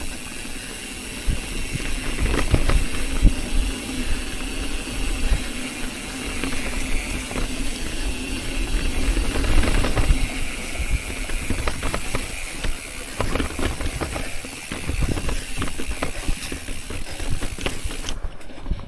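Mountain bike ridden on a rocky trail: the rear freehub ticks while coasting, and the bike rattles and knocks over rocks, with a steady hiss of wind and rolling noise.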